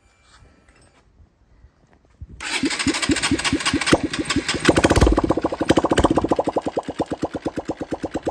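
Air-cooled single-cylinder motorcycle engine starting about two seconds in, running on just the bare exhaust pipe with no muffler. It revs up briefly, then settles into a slow idle of loud, separate exhaust pops.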